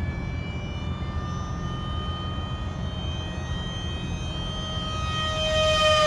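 Radio-controlled float plane's motor and propeller whining in a low pass over the water. The tone slowly rises and grows louder as it approaches, then drops in pitch as it goes by near the end.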